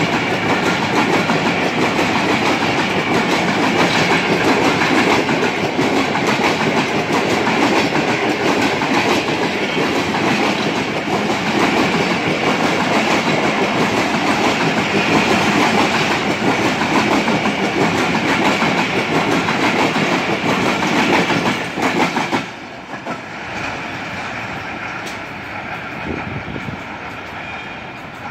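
Passenger express coaches of a Pakistan Railways train running through a station without stopping, the wheels on the rails making a loud, steady noise. About 22 seconds in the noise drops suddenly as the last coach goes by, leaving a fainter sound that fades as the train moves away.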